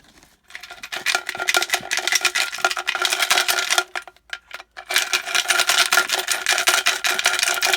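Coins and small metal treasure pieces jingling and clinking together as they are handled, a dense run of sharp clinks with a faint metallic ring, in two spells with a short break about four seconds in.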